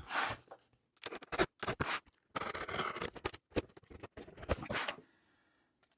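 A knife blade cutting open a package, a run of irregular scratchy strokes that stop shortly before the end.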